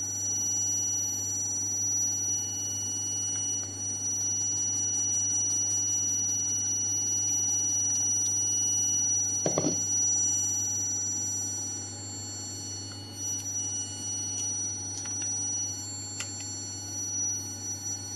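Vibratory stress relief exciter running on a welded workpiece: a steady low hum with several steady high-pitched whines over it. A brief knock sounds about halfway through.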